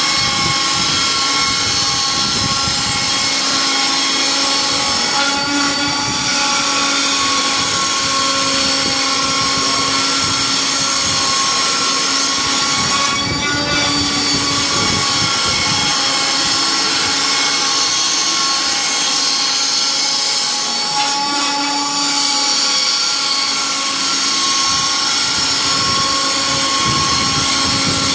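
Large CNC router running, its spindle and drive motors giving a loud, steady whine of several held tones that shift slightly in pitch as it moves.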